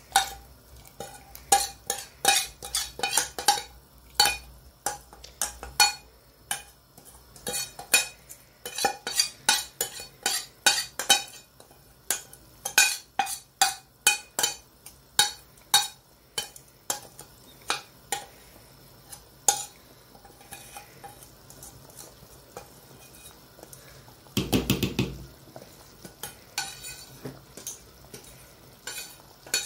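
Metal spoon scraping and knocking against the inside and rim of a stainless steel pot, many quick clinks in uneven runs, as a thick paste is scraped out of it. About three-quarters of the way through there is one louder, longer clatter of metal on metal.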